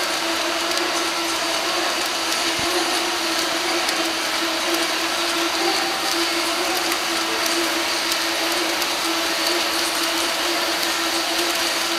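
Steady, loud din of an indoor swimming arena during a race: massed crowd noise echoing in the hall, with scattered sharp claps.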